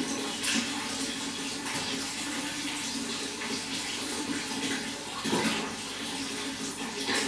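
Running water splashing and gurgling steadily, with irregular louder surges.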